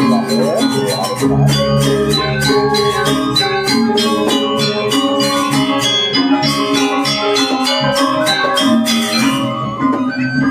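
Balinese gamelan gong ensemble playing, its bronze metallophones and gongs struck in a quick, even pattern of ringing notes.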